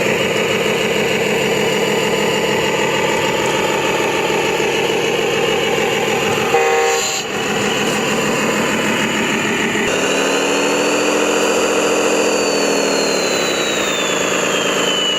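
RC heavy truck's diesel engine sound running steadily, with a short horn blast about seven seconds in. About ten seconds in, the engine note changes, its pitch swelling up and then falling away.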